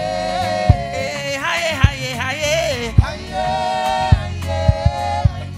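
Gospel music: singing over a bass line, with a kick drum hitting about once a second.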